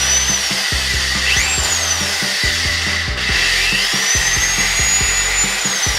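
Small electric drill boring a hole through a clothespin, its whine rising and falling as the motor speeds up and slows, over background music.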